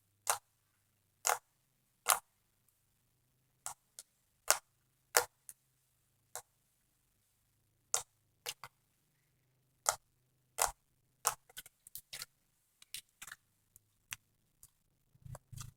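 Thick slime with foam beads being squeezed and poked by hand, giving sharp, irregular clicks and pops as trapped air bursts: a clicky texture. The clicks come faster in the second half.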